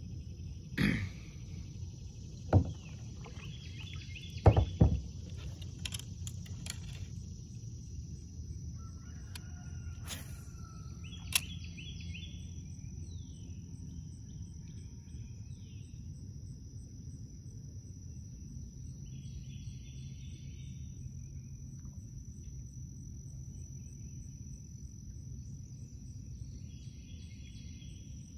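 Lake ambience with a few sharp knocks in the first five seconds, the loudest a double knock near the middle of them. A steady high-pitched whine runs under it all, over a low rumble, with a short bird call repeating every several seconds.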